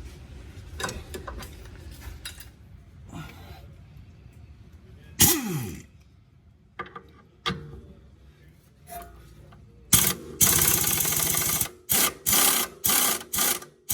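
Impact wrench running in one long burst of about two seconds, then a string of short bursts, spinning out a seized, WD-40-soaked 17 mm front lower control arm bolt. A single loud clank about five seconds in.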